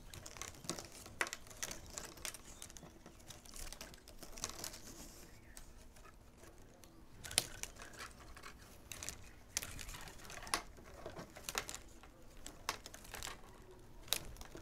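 Plastic baling straps crinkling and rustling as they are bent and folded up by hand, with scattered light clicks and snaps as the strips flex and slap against each other.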